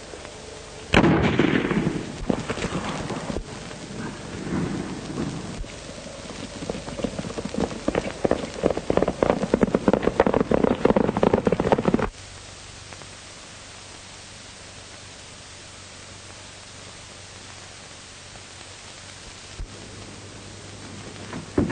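Thunderstorm sound effect on an old film soundtrack: a sudden thunderclap about a second in, then a longer rolling rumble with rain that cuts off abruptly near the middle. After that only steady soundtrack hiss with a faint hum remains.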